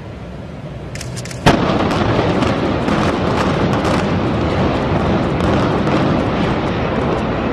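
Implosion of a multi-storey building. A few sharp cracks are followed about a second and a half in by a loud blast from the demolition charges. A long, steady rumble of the structure collapsing then runs on, full of cracking and crashing.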